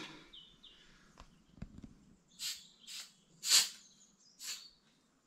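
Four short hissing squirts of ether starting fluid from an aerosol can, sprayed at a diesel tractor engine as a starting aid; the loudest comes about three and a half seconds in.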